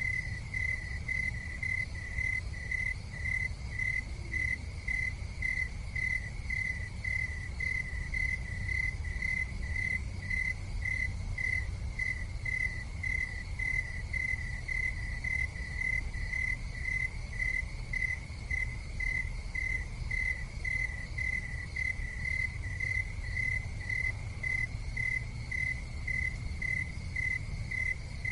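A cricket chirping steadily on one high note, about two chirps a second, over a steady low rumble.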